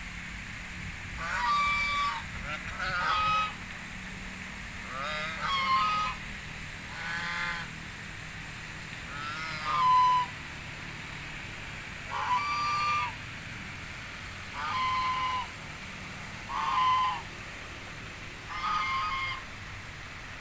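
Domestic geese honking: about ten separate loud, nasal calls, each lasting under a second, spaced a second or two apart.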